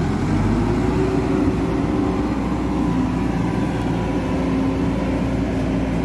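Hidromek 102B backhoe loader's diesel engine running under load as the machine drives and turns with a full front bucket, its note holding steady with small rises and falls.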